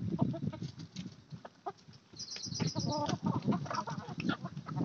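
Flock of free-range desi chickens clucking as they forage, with scattered short calls and many small clicks. A quick run of high chirps comes a little after two seconds in.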